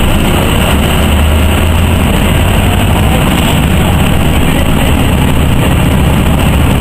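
Inside a NovaBUS RTS city bus under way: steady, loud engine rumble and road noise, with a strong low drone.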